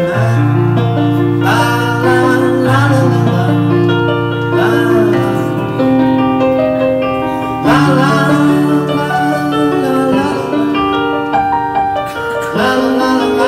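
Digital keyboard set to a piano sound, played live in an instrumental passage of sustained chords over a low bass note.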